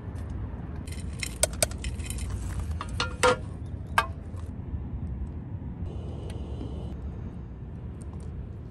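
Metal rocket stove parts clinking and tapping as gloved hands handle them: a run of sharp metallic clinks, some briefly ringing, between about one and four seconds in, over a low steady rumble.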